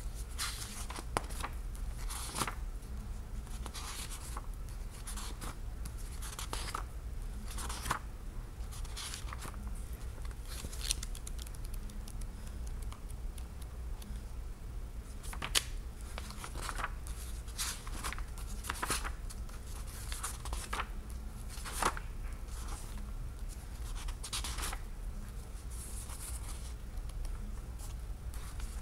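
Pages of a thick hardbound book being turned by hand one after another, each turn a short papery rustle or swish, coming irregularly.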